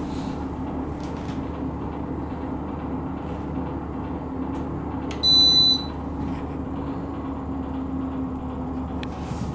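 Corona kerosene fan heater running with a steady hum, and one short, loud electronic beep about five seconds in.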